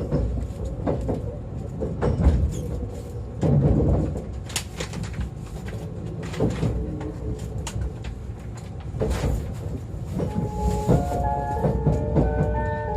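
Interior sound of a 681-series electric train car: a steady low rumble with repeated sharp clanks and knocks. From about ten seconds in, a series of clear tones steps from pitch to pitch.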